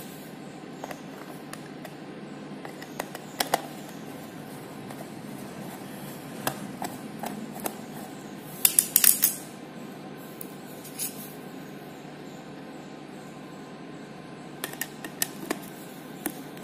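Screwdriver working the small screws out of a C-band LNBF housing: scattered sharp metallic clicks and scrapes, with a quick cluster of louder clinks about nine seconds in.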